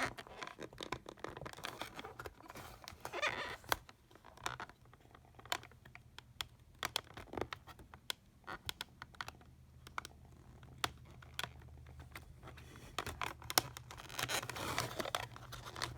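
Irregular small clicks, taps and scratching from hands working at a plastic precision screwdriver kit and its small bits, over a faint steady low hum.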